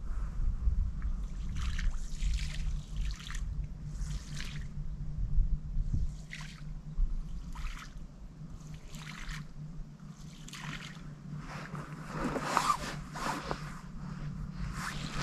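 Shallow marsh water splashing and trickling in short, irregular bursts, one every second or so and more frequent near the end, over a low wind rumble on the microphone.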